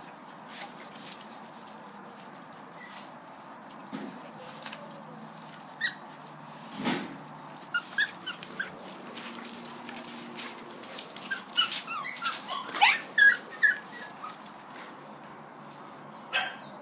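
Puppies at play giving many short, high-pitched yelps and squeals. They start about five seconds in and come thickest about three quarters of the way through, with scattered sharp clicks among them.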